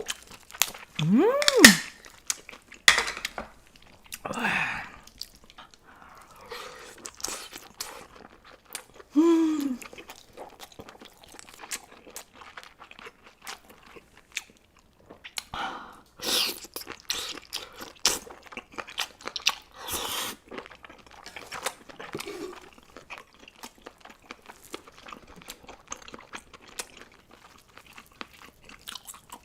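A person chewing and biting food close to the microphone: wet, crunchy mouth sounds with many short smacks, and a short hum about a second in and again near ten seconds.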